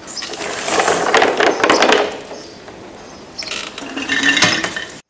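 Small hard pellets clattering and rattling as they are handled and poured into a glass jar on a scale. It comes in two spells, the second starting about three and a half seconds in, and cuts off abruptly near the end.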